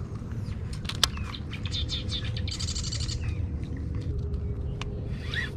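Birds calling: scattered chirps and sharp clicks, with a buzzy rattle about halfway through and a faint low held note, over a steady low rumble.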